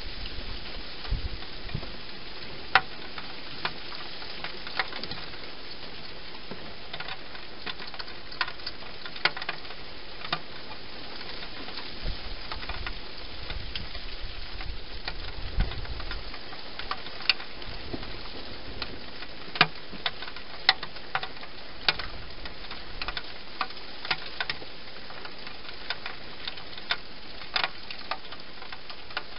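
Irregular sharp clicks and crunches, one every second or two, over a steady hiss: a wild hedgehog eating dry food inside a clear plastic feeding box.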